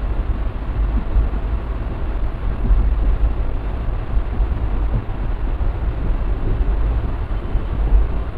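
Diesel-hauled passenger train running along the track: a steady low rumble of wheels on rails with a constant rushing noise.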